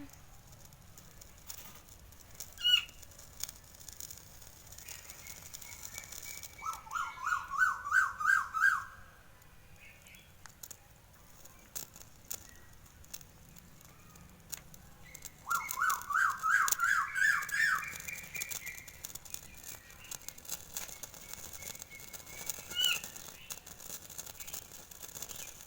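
A bird calling: two runs of quick, rising, repeated notes, each about two seconds long, with a single sharp chirp now and then.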